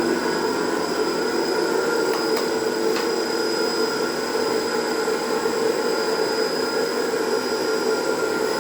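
MSS-S1W1 edge sanding machine running steadily, its motors and sanding units giving an even hum with a high whine above it. Two faint ticks come about two and a half and three seconds in.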